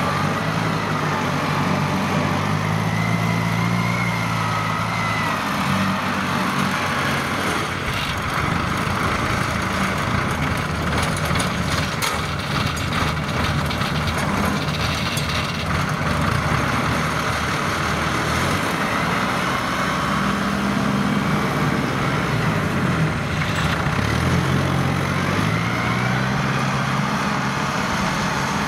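Kubota DC70 rice combine harvester running under load while cutting, its diesel engine and threshing machinery a steady drone. The engine note rises and falls slightly twice, a few seconds in and again later on.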